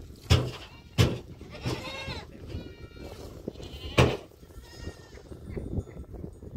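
A goat hand-milked into a bowl: sharp squirts of milk striking the bowl, two in the first second and one more about four seconds in, while goats in the pen bleat a few times.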